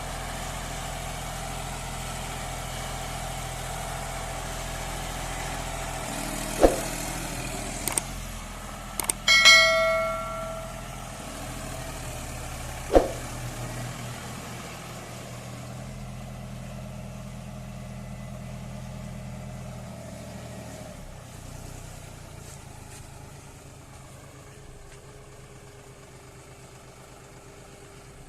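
John Deere 5310 tractor's diesel engine idling steadily, with a few sharp knocks and one loud, ringing metal clang about nine seconds in. The engine sound fades toward the end.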